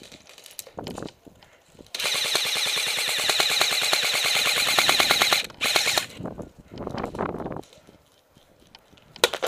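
Airsoft M249 electric gun firing full-auto: a long rapid burst of about three and a half seconds starting about two seconds in, a short burst just after, and a single shot near the end.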